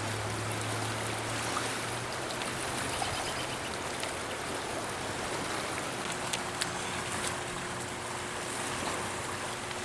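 Spring Creek's water running steadily over the stream bed, an even rushing, with a faint low hum under it for the first few seconds and a faint steady tone from about halfway through.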